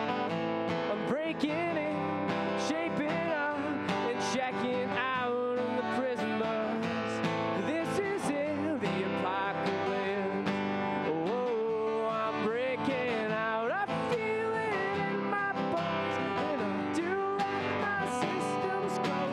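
A man singing and strumming an acoustic guitar in a live performance.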